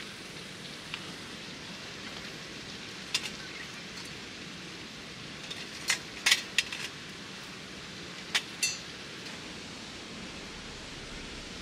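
Short sharp metallic clinks and knocks from a stainless-steel wood-burning twig stove being handled and set on a fire-resistant sheet: one about three seconds in, a quick cluster around six seconds, and two more about eight and a half seconds in, the last ringing briefly. A steady hiss runs underneath.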